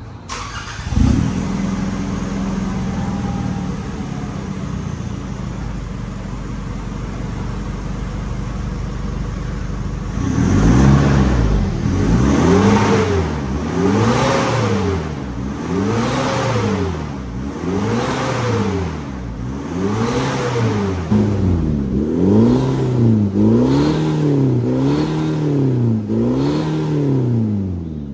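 Nissan Terra engine heard through an aftermarket full exhaust with a G-pipe resonator and Borla tip. It starts about a second in and idles steadily, then from about ten seconds in it is revved again and again, each rev rising and falling in pitch about every two seconds, a little quicker near the end.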